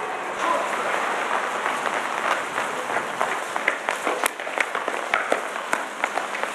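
Several people running on stone paving: a rapid, irregular patter of sharp footfalls over a steady hiss.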